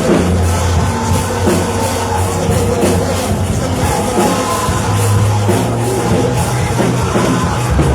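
Loud live church praise music with a band, a strong steady bass line and drums, mixed with singing and the congregation.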